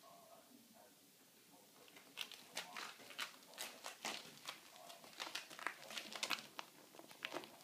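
Prairie dog scrambling inside a clear, wire-ribbed plastic hose, its claws scratching and crinkling the ribbed plastic in quick, irregular scrapes that start about two seconds in.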